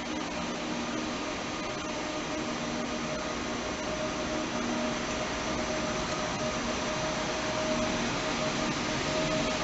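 ICE-T electric multiple unit pulling slowly out of the station, its cooling blowers and traction equipment giving a steady hiss with a steady whine over it, growing a little louder near the end.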